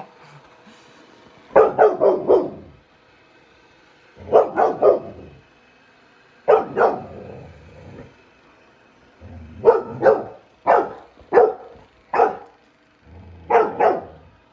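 Young golden retriever puppy barking at a robot vacuum it has never seen, alarmed by the unfamiliar machine. The barks come in short runs of two or three, about five runs, with quiet gaps between.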